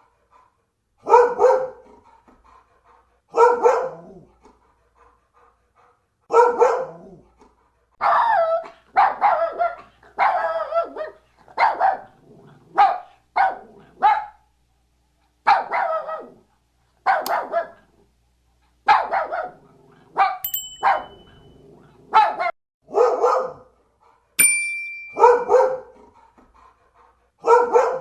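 A dog barking repeatedly, about twenty single barks a second or two apart, coming faster in the middle.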